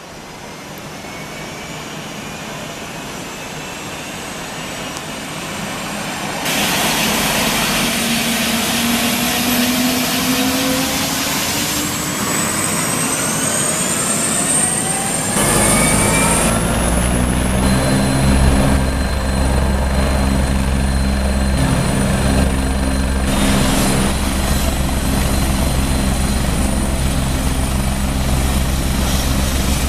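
Twin-turbine Agusta A109 helicopter starting up. A turbine whine rises in pitch and grows louder, with a jump in loudness about six seconds in. From about halfway a deep, steady rotor beat sets in as the main rotor comes up to speed.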